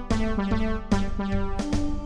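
Synthesizer music: a quick run of short, sharply struck notes over a held low bass.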